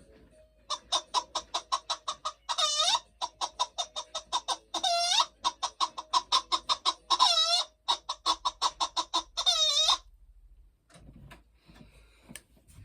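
A hen cackling: a fast run of short clucks, about five a second, broken four times by a long drawn-out squawk. It stops about ten seconds in.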